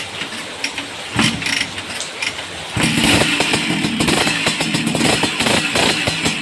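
Vespa PX single-cylinder two-stroke scooter engine, fitted with an RC ignition. A couple of short bursts come first, then it starts about three seconds in and keeps running loudly.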